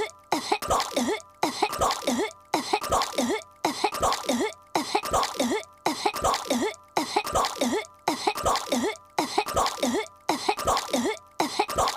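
Cartoon girl's voiced coughing and hacking fit, choking on gum. One short clip of coughs is looped, so the same burst repeats at an even pace about every second and a third.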